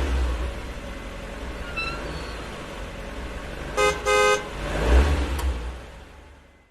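Two short horn toots, the second slightly longer, over a low outdoor rumble like wind or passing traffic that swells and then fades away near the end.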